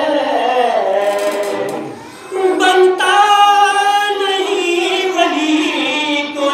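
A man singing devotional poetry unaccompanied into a microphone, holding long, wavering notes, with a brief pause for breath about two seconds in.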